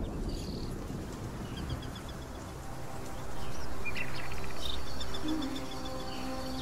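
Birds calling in a film soundtrack's nature ambience, with short repeated chirps, over a low rumble that fades away; a steady swell of ambient noise comes in about three seconds in and eases off near the end, with faint sustained tones beneath.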